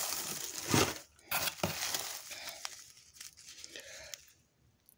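Crinkle-cut paper shred filler and paper wrapping rustling and crinkling as hands rummage through a cardboard box, loudest in the first two seconds and dying away toward the end.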